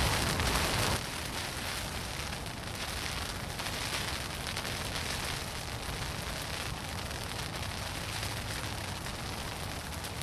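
Steady rushing outdoor noise, louder for about the first second.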